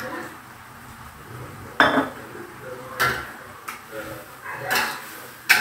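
A metal spatula clanks and scrapes against a wok while stirring cassava leaves in sauce. There are four sharp clanks spaced about a second apart.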